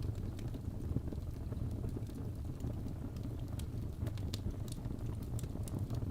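Fireplace crackling with scattered sharp pops over a steady low rumble of storm ambience.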